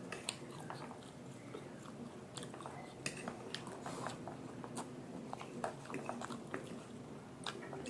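A person chewing and biting a meal of chow mein and momos, with many irregular sharp mouth clicks and smacks.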